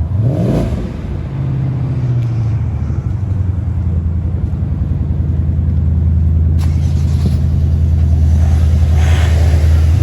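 Ford Mustang's engine running steadily as the car is moved out of the workshop unit, a low even engine note that grows a little louder over the second half.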